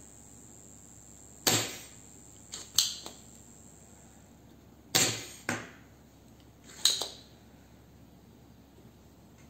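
Spring-loaded desoldering pump firing at a solder joint on a small circuit board: five or six sharp snaps at uneven intervals, some in quick pairs, each ending in a short ringing tail.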